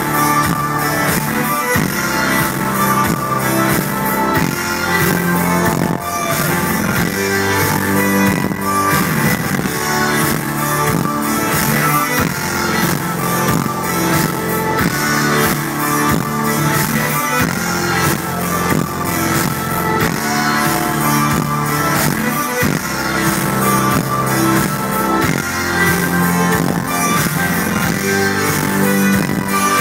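Loud live electronic dance music over a concert sound system in a large hall, with a steady beat and held chords.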